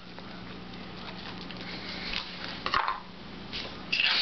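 Faint handling clicks and a short rustle, then near the end an aerosol can starts spraying with a loud steady hiss.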